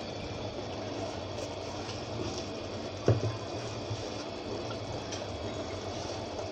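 Spice masala with peanut paste simmering in an aluminium pot on a gas stove: a steady soft bubbling hiss, with a single knock of the metal spoon against the pot about three seconds in.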